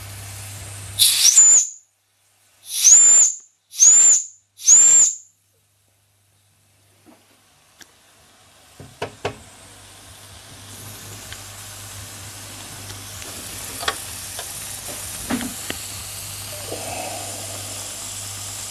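Toy steam engine's boiler whistle blown four times in short bursts, each a rush of steam rising into a shrill tone. Then, after a few light clicks, a steady hiss that slowly grows louder.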